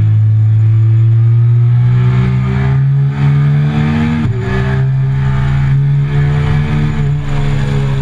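Triumph Speed Triple 1050's inline three-cylinder engine under hard acceleration. Its pitch climbs steadily, drops sharply at two upshifts (a little over four seconds in and about seven seconds in) and climbs again.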